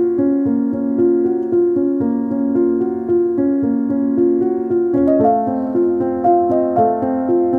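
Background piano music playing a flowing melody, with a new phrase beginning about five seconds in.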